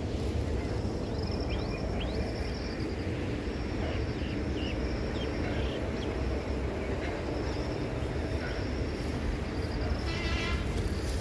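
Rural outdoor ambience: insects trilling on and off in a high pulsing band, with a few short chirps in the first few seconds and a brief buzzy call near the end, over a steady low rumble.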